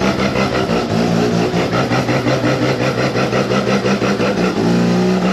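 Car engine running with a fast, regular pulsing beat; its pitch shifts briefly near the end.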